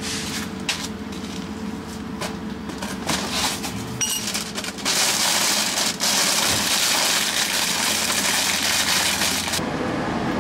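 Paper and plastic crinkling and rustling as a cardboard oil-disposal box is opened and its absorbent packing set out: light scattered taps and rustles at first, then a dense continuous rustle for about five seconds from around the middle.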